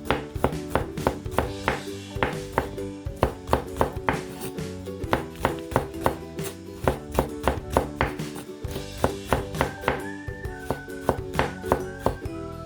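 Knife chopping on a cutting board, quick regular strokes about three a second, over background music; a whistled tune in the music comes in near the end.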